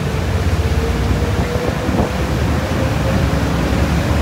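Passenger ferry's engines running under way: a steady low rumble with a faint steady hum above it, heard from the open deck with wind on the microphone.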